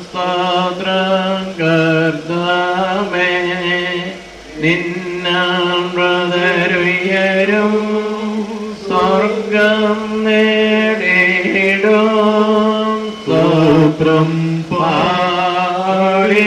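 Male voices chanting a slow Malayalam funeral hymn of the Syriac Christian liturgy, long held notes on a narrow melody broken by a few short pauses.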